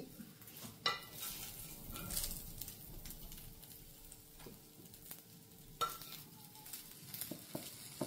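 Chicken frying and sizzling in a pan, with a few sharp clicks, the clearest about a second in and about six seconds in.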